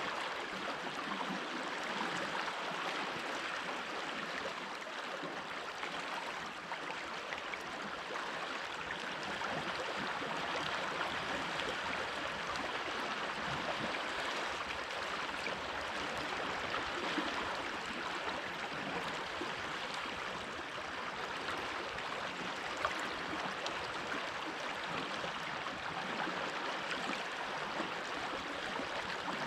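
A stream of water flowing over stones, a steady rushing and gurgling.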